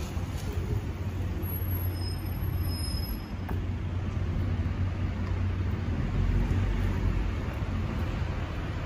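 Street traffic with city buses and cars running: a steady low rumble that swells briefly about six seconds in.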